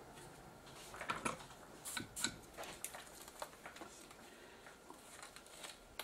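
Irregular small clicks and scrapes of hands handling a circuit board while fitting replacement electrolytic capacitors, their wire leads being pushed through the board's holes.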